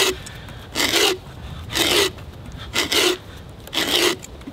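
Hand auger boring down into the top of a wooden log, its bit cutting through the wood in short strokes about one a second as the handle is turned.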